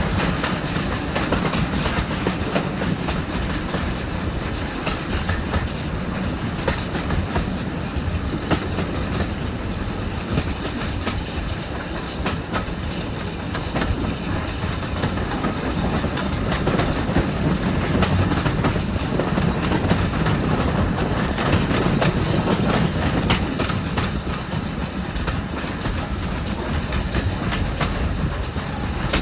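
Stanier Black 5 4-6-0 steam locomotive hauling a passenger train, heard from an open carriage window: its exhaust and the carriage wheels clicking over the rail joints, with a steady rush of air.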